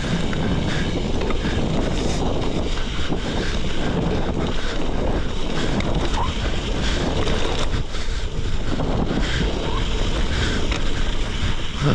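Wind rushing over the camera microphone as a gravel bike rolls along a dirt forest road, its tyres running over the packed dirt and loose gravel with scattered small clicks and rattles.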